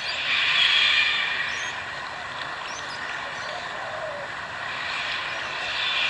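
Birds calling: short high chirps and a lower call that falls in pitch, over a steady rushing hiss that swells twice, about a second in and again near the end.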